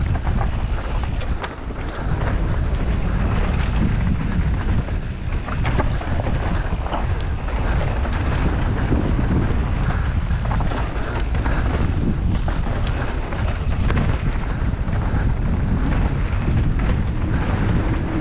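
Wind buffeting the microphone of an action camera on a downhill mountain bike descending a dirt forest trail, over the rumble of tyres on dirt and roots, with scattered clicks and knocks of the bike rattling over bumps.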